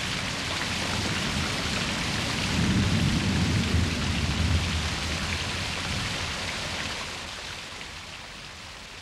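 Heavy rain of a tropical thunderstorm, with a low rumble of thunder swelling about two and a half seconds in and dying away. The storm noise grows quieter over the last two seconds.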